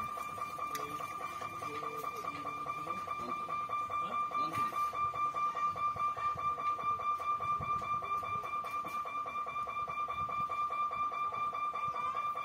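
Electric warning hooter of a railway level-crossing gate sounding one unbroken high electronic tone while the boom barriers lower. It pulses rapidly in loudness through the middle stretch.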